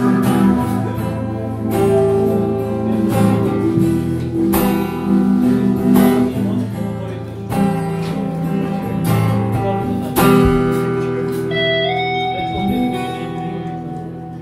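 Live rock band playing an instrumental passage: strummed acoustic guitar over sustained keyboard chords and drums, with a guitar note sliding up in pitch a little past the middle. The music fades down toward the end as the song winds down.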